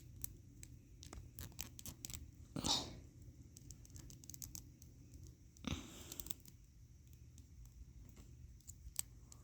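Small plastic parts of a Nendoroid figure being handled and pressed together: faint, scattered light clicks and rustling, with two louder brief rustles about a third and two thirds of the way through.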